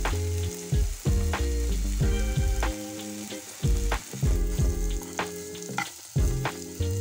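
Ginger and raw turmeric paste sizzling in ghee in a nonstick pan, stirred and scraped with a spatula, with instrumental background music underneath.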